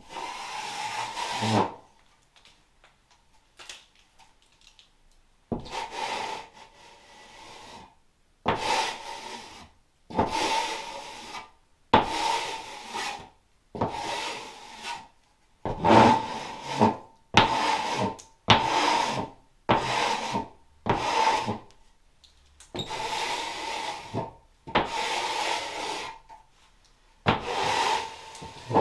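Hand sanding of a dried first coat of filler on plasterboard: a series of rasping strokes, each about a second long with short pauses between them, coming shorter and quicker in the middle.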